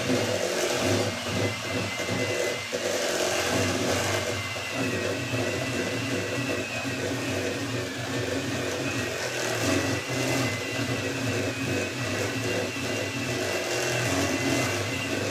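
Electric hand mixer running steadily with a high whine, its beaters whipping butter and cream in a bowl.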